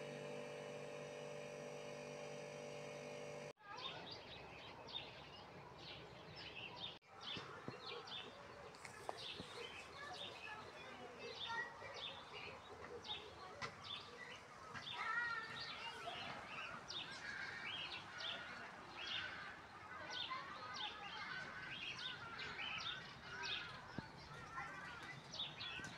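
A steady hum for the first few seconds, then, from about four seconds in, birds chirping and singing: many short repeated chirps with warbling calls mixed in, over faint outdoor background noise.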